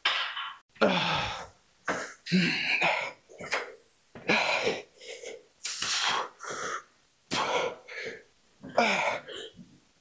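A man breathing hard through a set of dumbbell lateral raises. He gives a forceful, partly voiced exhale or grunt with each rep, about one a second.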